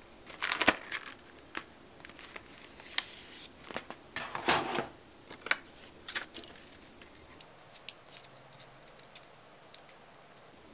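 Scattered sharp clicks, taps and short clattery rustles of nail-art supplies being handled: long artificial nails tapping on plastic parts cases and a glass dish, and a wheel case of gold studs being picked up. The densest clatter comes just after the start and again about four seconds in. It thins to occasional light ticks over the last few seconds.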